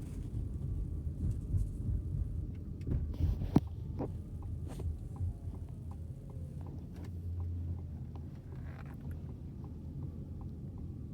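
A Ford car's turn signal ticking steadily, about two ticks a second, starting about five seconds in, over the low rumble of the car driving. A single sharp click about three and a half seconds in.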